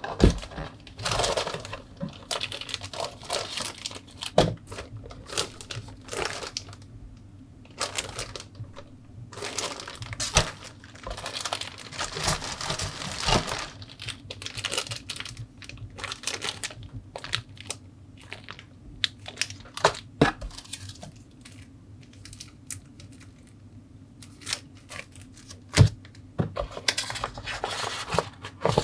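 Plastic bags holding model-kit parts trees crinkling as they are handled, with irregular rustles and a few sharp clicks and knocks of the plastic sprues being set down.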